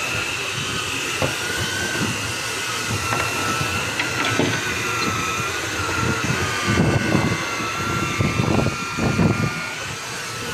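Fishing boat's engine running steadily with a slowly wavering high whine. Several low rumbles come about seven to nine seconds in.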